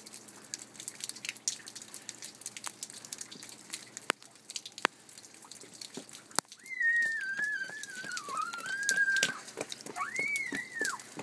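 Meltwater dripping off a roof: a scatter of sharp drip taps throughout, a few louder single ones. From about seven seconds in, a wavering whistle-like tone runs for about two and a half seconds, then a shorter one rises and falls near the end; these are the loudest sounds.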